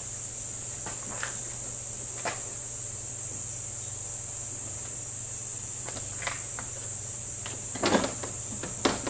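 Steady high-pitched trilling of crickets, with a few scattered clicks and knocks from handling the plastic headlight unit, the loudest pair near the end.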